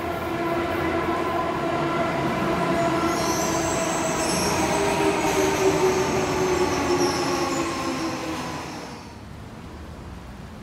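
Tokyo Metro Hibiya Line subway train running past the station platform: a steady whine with high-pitched wheel squeal from about three to eight seconds in. The sound fades out about nine seconds in.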